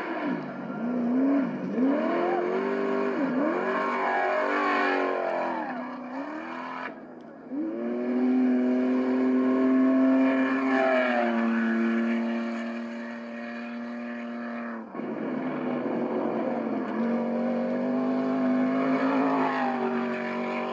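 Off-road race truck engines running at high revs as trucks pass: the pitch climbs and falls through the gears for the first several seconds, then holds steady in long full-throttle pulls, with a jump in pitch about eleven seconds in.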